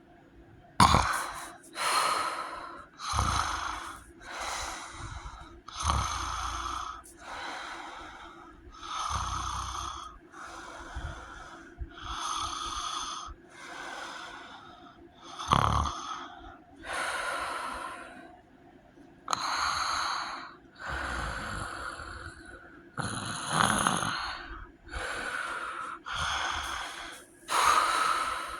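Heavy, wheezy snoring, one harsh snore about every second in a steady rhythm, a few of them sharper and louder, snort-like. The uploader says the sleeper has sleep apnea.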